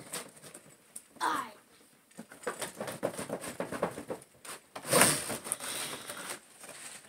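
Gift packaging being handled and pulled out of a box: a run of small clicks and rustles, then a louder rustle about five seconds in.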